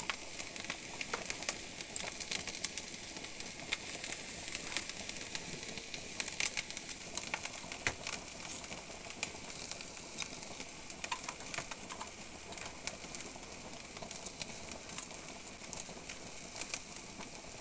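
Fried rice with onion, chillies and turmeric sizzling in hot oil in a wok: a steady hiss with fine crackles.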